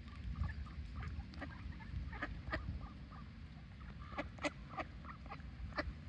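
Ducks calling: a scatter of short calls, loudest in clusters around two and a half seconds and four and a half seconds in, over a steady low rumble.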